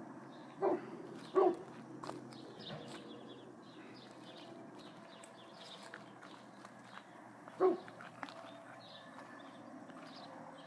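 A dog barking three times: two barks close together about a second in, and a third several seconds later.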